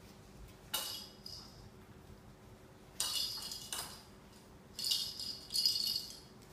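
Puppies playing in a wire pen, with four short bursts of metallic jingling and rattling: one about a second in, one around three seconds, and two close together near the end.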